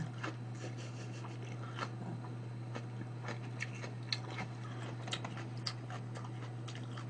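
Soft clicks and wet smacks of a person chewing food close to the microphone, over a steady low hum.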